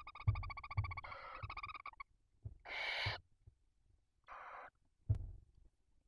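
Barn owls in the nest box: a rapid, pulsed trilling call at a steady pitch for the first two seconds, then two short rasping hisses about three and four and a half seconds in. A few dull thumps come from the birds shifting against the box.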